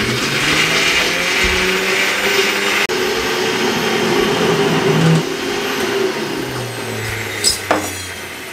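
Electric blender running at full speed, grinding roasted peanuts, coconut, green chillies and herbs into a thick green chutney. It cuts out briefly about three seconds in, then the motor slows and winds down near the end, with two sharp clicks as the jar is handled.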